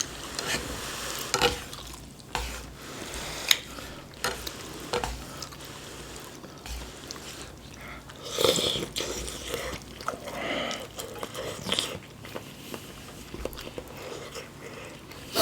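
Close-miked eating of Korean army stew: chewing and biting, with scattered clicks of utensils against the dish and a louder burst about eight seconds in.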